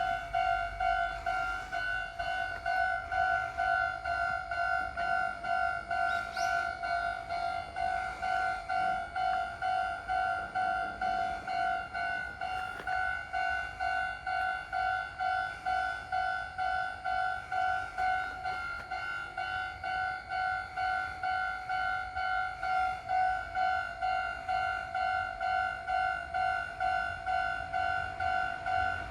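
Japanese railway level-crossing warning bell ringing steadily, an electronic two-tone ding repeating about twice a second: the signal that the crossing is closed for an approaching train.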